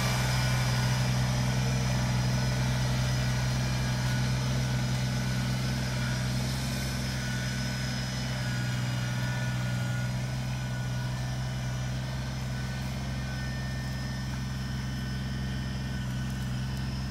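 Compact tractor-loader-backhoe's engine running at a steady, even pitch.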